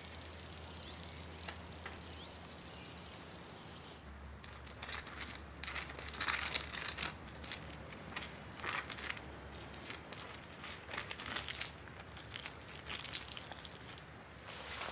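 Faint steady outdoor background, then from about four seconds in, irregular rustling and crackling of dry grass and vegetation being disturbed at the roadside.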